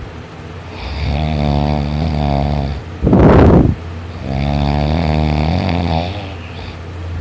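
Heavy snoring during sleep: two long, droning snores, with a loud rushing heavy breath between them about three seconds in, which is the loudest part.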